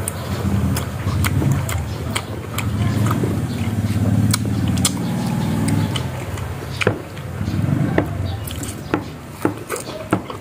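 Close-up eating sounds of ripe Indian mango: repeated wet smacks and clicks of lips and mouths biting and sucking the soft flesh. A low droning hum swells underneath for several seconds, then fades and returns briefly near the end.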